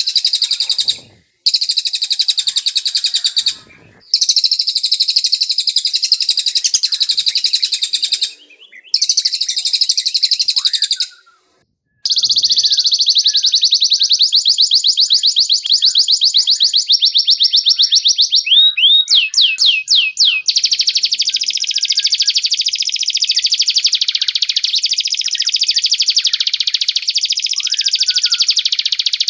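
Domestic canary singing long, rapid rolling trills. Short pauses break the song in the first dozen seconds, after which it runs on unbroken, with a few quick rising sweeps about two-thirds of the way through. Fainter, lower chirps sound beneath.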